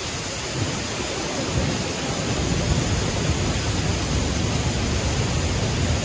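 Large waterfall in high flow: a steady, dense rush of falling water with a deep low rumble underneath.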